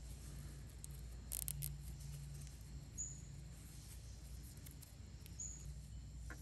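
Hands twisting dry plant-fibre cord, with a few faint crackles about a second and a half in, over quiet outdoor ambience with two short high chirps a couple of seconds apart.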